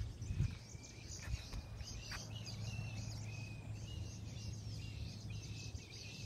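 Several birds chirping and calling, with short repeated whistled notes that come thicker from about halfway through, over a steady low background hum.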